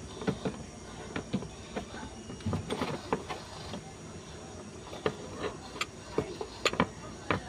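Scattered light clicks and knocks of hands and a tool working around an engine's fan hub and crankshaft pulley during a belt change, at irregular times over a steady faint hiss.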